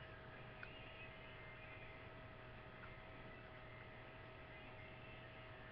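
Near silence: a steady faint electrical hum with light hiss, and one tiny click about half a second in.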